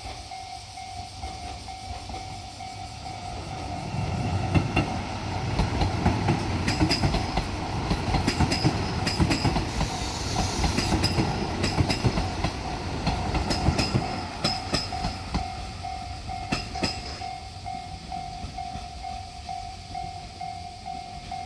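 Japanese level crossing alarm ringing in a steady repeating tone while a diesel railcar train runs over the crossing. The train's rumble rises about four seconds in and fades after about sixteen seconds, with clacks of the wheels over rail joints.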